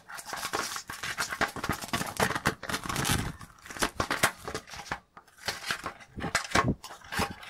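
Packing tape and a cardboard shipping box being ripped open by hand: an irregular run of rips, crackles and scrapes, with a short pause about five seconds in.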